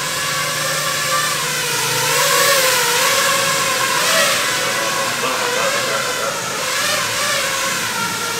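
5-inch FPV racing quadcopter's brushless motors and propellers whining in flight, the pitch rising and dipping gently a few times with the throttle.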